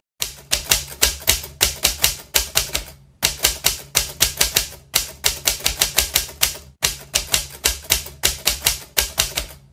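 Typewriter keys clacking in quick runs of about four strikes a second, broken by short pauses, with a faint low hum underneath.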